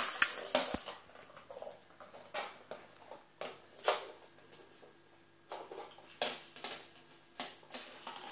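Two kittens wrestling on a wooden floor: irregular scuffling and scrabbling of paws and bodies, with a few sharper knocks, the loudest near the start and about four seconds in.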